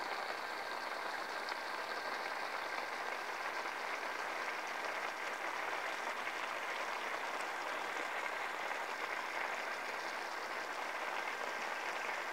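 Seafood paella stock boiling hard in a wide paella pan: a steady, dense bubbling and crackling.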